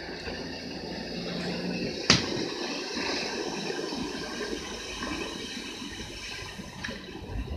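Water rushing and sloshing, with a single sharp knock about two seconds in.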